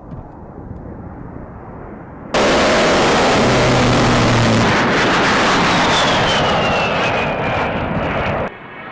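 A-10 Thunderbolt II's twin TF34 turbofan engines as the jet passes close by: a loud rushing jet noise with a high whine falling in pitch as it goes past. The loud noise starts suddenly about two seconds in and cuts off abruptly just before the end, over a fainter jet noise.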